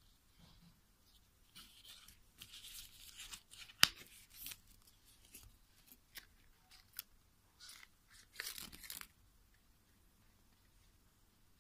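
A kraft paper envelope being opened and handled: paper tearing and rustling in short bursts, with one sharp snap about four seconds in and another burst of rustling near nine seconds as the small packets inside come out.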